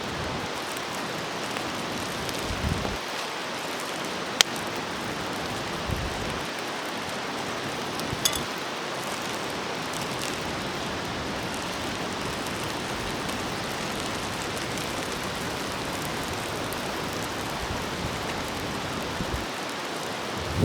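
Food sizzling steadily on an iron griddle over a campfire, with a few sharp pops and crackles, the loudest about four seconds in.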